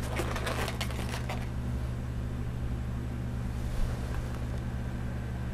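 Latex twisting balloons rubbing and squeaking in short bursts as the balloon helicopter is turned in the hands for about the first second and a half, over a steady low hum.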